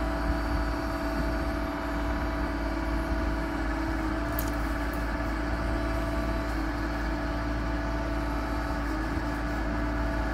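Compact excavator's diesel engine running steadily at an even pitch, with no revving, and a brief click about four seconds in.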